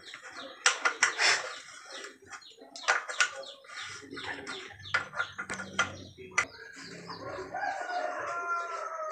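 Irregular sharp clicks and knocks from a Toyota Alphard's EPS steering rack being worked back and forth to test it; the rack still has free play, which the mechanic puts down to worn rack teeth. A rooster crows near the end.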